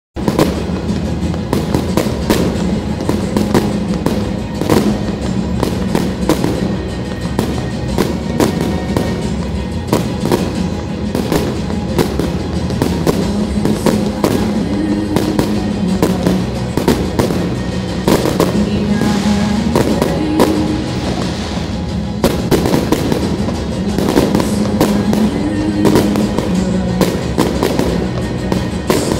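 Fireworks display: aerial shells bursting in quick, unbroken succession, many bangs a second, with music playing underneath in held low notes.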